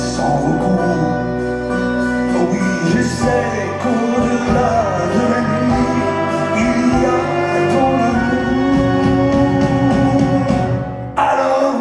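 Live French chanson: a male singer with a backing band, the voice carried over sustained band music. The sound briefly drops out about eleven seconds in.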